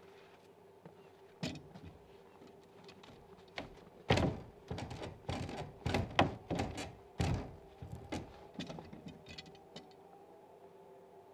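Footsteps crunching on packed snow, a few at first and then a quick run of heavier steps between about four and seven and a half seconds, over a steady faint hum.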